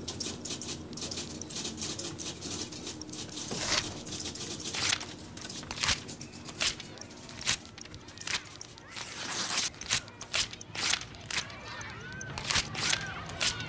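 Sheets of paper being torn and ripped apart by hand in a rapid, irregular series of sharp rips. A woman's crying breaks in near the end.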